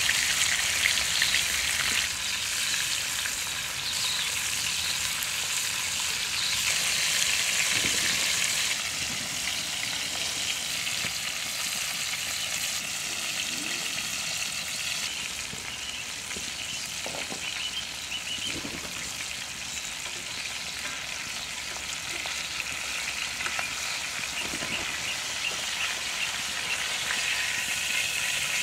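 Floured flounder frying in hot oil in a cast iron skillet, a steady sizzle with fine crackling, the fish cooking on its second side.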